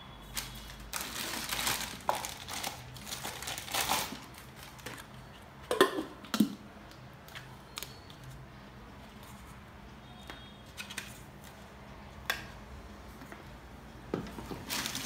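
Packaging rustling and crinkling while a stainless steel mixer-grinder jar is handled, with a few sharp clicks and knocks of the jar and its plastic lid about six seconds in, the loudest sounds here.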